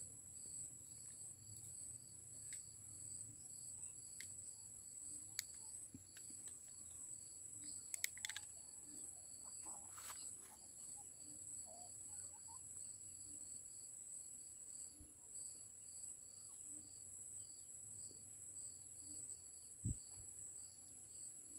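Insects shrilling in a steady high-pitched chorus with a regular pulse, crickets or cicadas, with a few faint sharp clicks and one low thump near the end.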